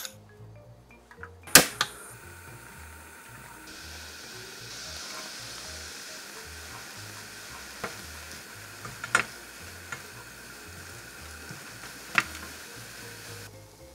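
Food sizzling in a hot frying pan, starting just after a sharp clack about a second and a half in and growing louder a couple of seconds later. A few utensil taps against the pan come through the sizzle, which stops shortly before the end.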